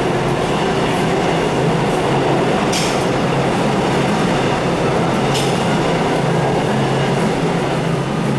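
Seoul Metro Line 4 Series 4000 subway train with GEC Alstom VVVF traction pulling out of an underground station, its cars running past in a loud, steady rumble of wheels and running gear. Two brief sharp high-pitched sounds come about three seconds and five and a half seconds in.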